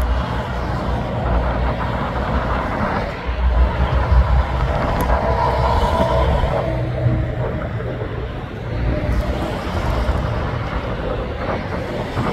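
Highway traffic passing: an articulated container truck and cars going by, a steady rumble of engines and tyres on the road that rises and falls as vehicles pass.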